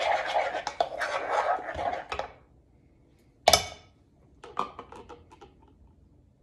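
A spoon beating thick chocolate glaze in a stainless steel saucepan, scraping and clinking quickly against the pan. It stops about two and a half seconds in, followed by one sharp knock and then a few light clicks as the spoon is scraped clean with a spatula.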